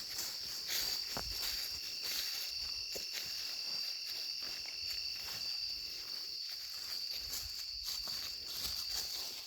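Insects droning in a steady, high, even tone, with scattered soft footsteps.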